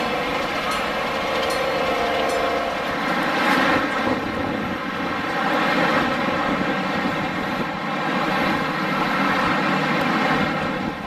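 Ride-on 7½-inch gauge model diesel-outline locomotive pulling its cars, the motor running with a steady drone. A few wheel clicks over rail joints come in the first couple of seconds.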